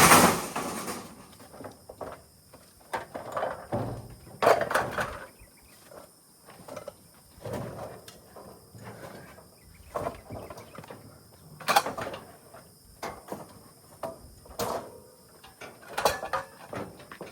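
Scrap metal being handled and set down, giving irregular clanks and knocks with quiet gaps between, the loudest right at the start.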